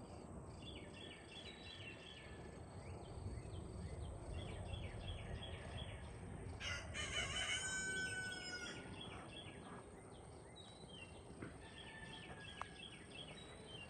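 Faint high chirping in short repeated bursts every second or two, the very low calls of nestling woodpeckers begging inside the nest cavity. About halfway through, a louder drawn-out bird call lasts about two seconds.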